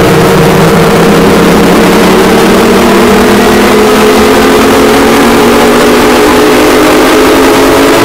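Mock emergency-alert alarm played extremely loud and distorted: several held tones slowly rising in pitch together, like a siren winding up, under a harsh clipped hiss.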